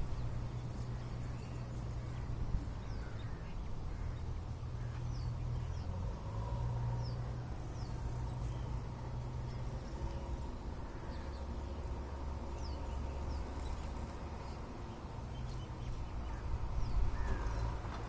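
Sunbirds giving short, high, thin chirps that slide downward, scattered through, over a steady low rumble. A crow caws near the end.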